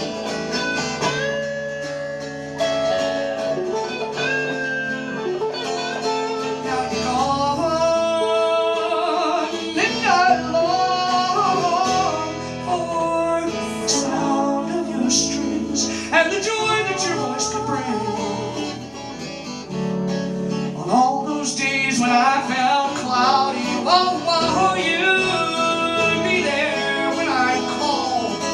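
Live acoustic country-style music: guitar playing chords, with a melody line that slides and bends in pitch over it.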